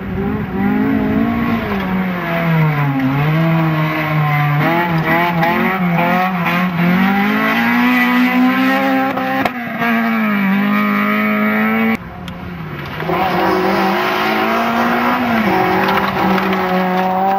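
Front-wheel-drive rally cars driven hard on loose gravel: a Honda Civic's engine note rises and falls as it revs. About twelve seconds in the sound cuts suddenly to a Peugeot 206's engine, which carries on revving.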